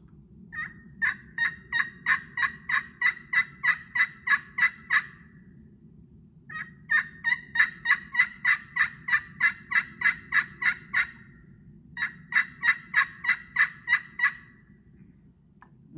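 Kingwood pot-style turkey friction call with a copper playing surface over a glass soundboard, worked with a striker in three runs of hen yelps, about three yelps a second. The glass soundboard gives it a louder, higher-pitched, raspy tone.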